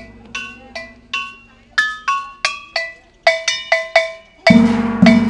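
Struck gongs ringing: a run of separate metallic notes at changing pitches in an uneven rhythm, then two loud, deep strokes near the end.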